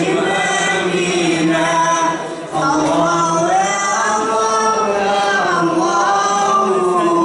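Group of voices chanting a devotional song in unison, long drawn-out notes that glide slowly up and down, with a short break about two seconds in.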